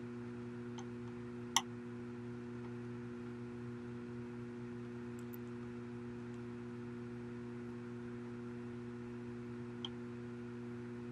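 Small clicks of repair tools on a disassembled iPhone 5: one sharp click about a second and a half in, a fainter one near the end and a few tiny ticks, over a steady low electrical hum.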